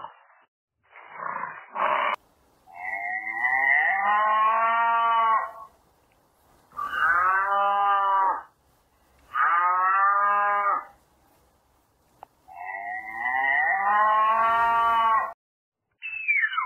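Cows mooing: four long, drawn-out moos, each lasting about two to three seconds with short gaps between. A short rough noise comes before them, and a brief falling call comes near the end.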